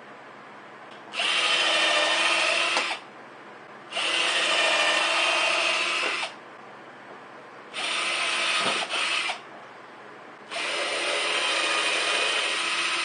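Cordless drill run in four bursts of about one and a half to two and a half seconds each, its motor whine steady within each burst.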